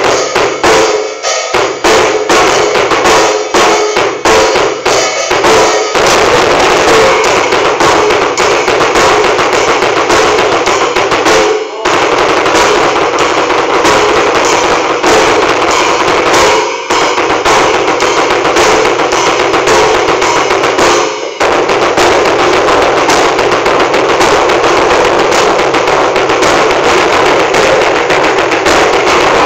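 Bass drum played very fast with a Tama Iron Cobra double pedal, both feet alternating in rapid rolls of strokes. The strokes come spaced out at first, then run into a near-continuous roll after about six seconds, broken by brief stops three times.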